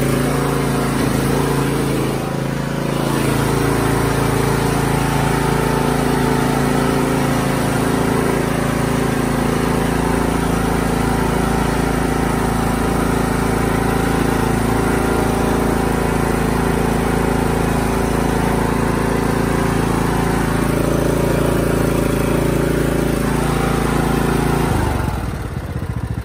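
Craftsman T110 riding mower's engine running steadily at full throttle, then throttled down near the end, its pitch and level dropping.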